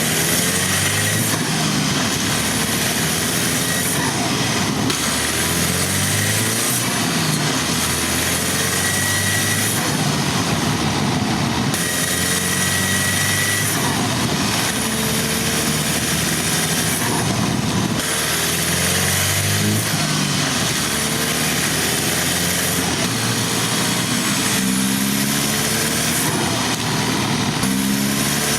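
Turbocharged engine of a stage 1 tuned Audi A4 under way, its pitch climbing and dropping again every few seconds as it accelerates and eases off, with the turbo whistling as it spools.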